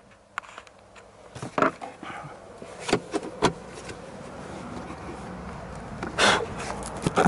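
Hard plastic dashboard trim panel being handled and lifted out of the car: scattered clicks and knocks, with a louder scrape about six seconds in.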